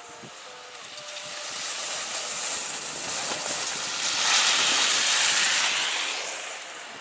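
Skis hissing and scraping over packed snow as a skier turns past, swelling to its loudest about four seconds in and fading toward the end.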